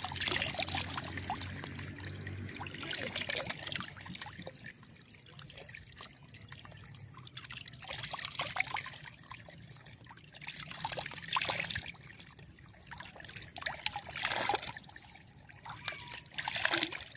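Water poured from a cupped hand into shallow standing water, splashing and trickling in about six separate pours a few seconds apart, with a faint trickle between them.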